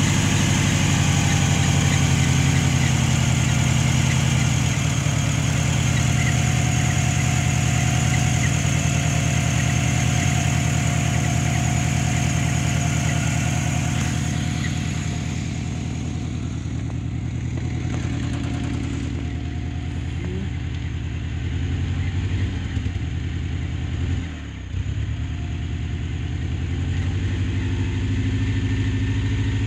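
Dodge Ram pickup engine idling steadily, with an exhaust leak at the catalytic converter that the owner says makes it run heavy. About halfway through, the sound turns duller.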